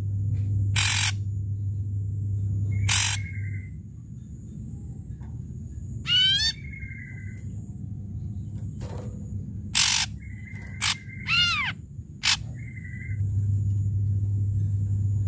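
Ashy drongo singing a spaced, varied song: loud harsh notes, whistled notes that sweep up and down, and short level whistles.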